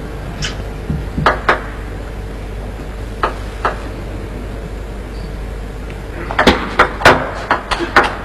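Table tennis ball clicking: two pairs of single taps in the first few seconds, then from about six seconds in a fast rally, the ball striking bats and table in quick alternation, several hits a second, over a steady low arena hum.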